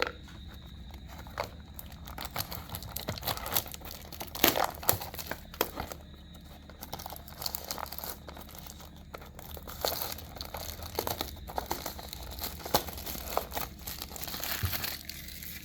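Toy car packaging being opened by hand: irregular crinkling and rustling, with scattered sharp clicks and tearing sounds.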